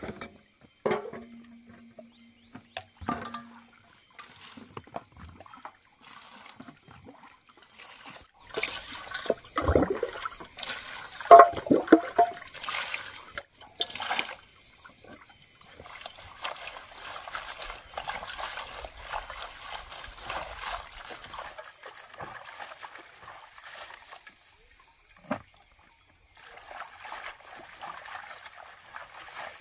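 A few light knocks, then water poured from a bamboo dipper splashes loudly into an aluminium basin of leafy greens about a third of the way in. After that come softer sloshing and trickling as hands swish and rinse the greens in the water.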